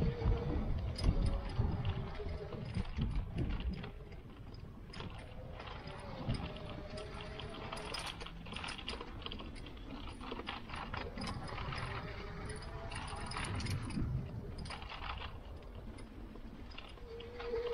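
Footsteps swishing through grass as the camera is carried along a path, with wind rumbling on the microphone in the first few seconds and many small rustles and clicks. A faint buzzing that rises slightly in pitch comes in near the end.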